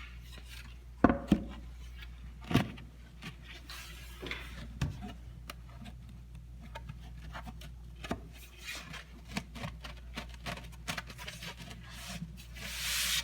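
Wooden drawer parts being dry-fitted by hand: sharp knocks of wood on wood, two about a second in and another about two and a half seconds in, then lighter taps and rubbing as the panels are slid into their grooves, with a longer scrape near the end.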